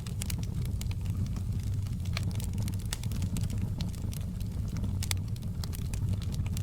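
Fire crackling in a fireplace: scattered sharp pops and snaps at irregular moments over a steady low rumble.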